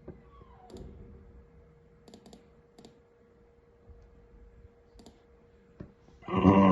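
A scattered handful of sharp computer clicks over a faint steady hum. Near the end comes one short, loud voice-like sound.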